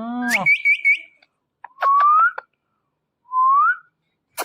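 Indian ringneck parakeet vocalising: a brief rising squawk that breaks into four quick chirps, then two short whistles that each rise in pitch, about a second and a half apart.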